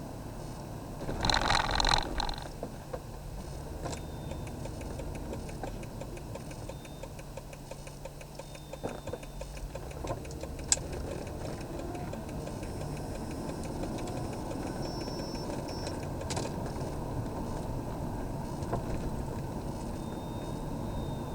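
Steady road and engine noise inside a moving car's cabin, with a fast, even ticking for much of the time. A brief louder noisy burst comes about a second in.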